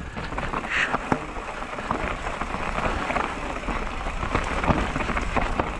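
Mountain bike riding down a rocky dirt singletrack: tyres crunching over loose stones and dirt, with many small clicks and knocks from the bike rattling over rocks and a constant low rumble.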